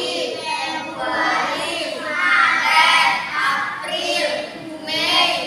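Children singing together with a woman, a classroom song in English on the days of the week.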